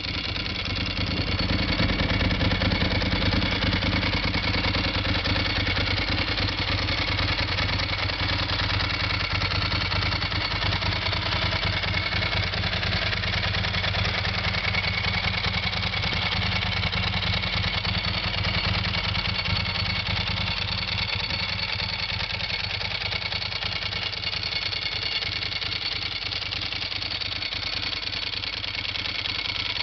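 Ducati 748 S's 90-degree V-twin engine idling steadily through carbon 45 mm Termignoni slip-on exhausts, a little louder from about two seconds in.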